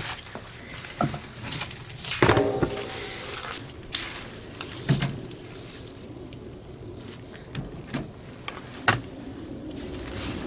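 Intermittent knocks and clatter of equipment being handled, with the loudest, a rattling clatter, about two seconds in and sharper knocks around five and nine seconds.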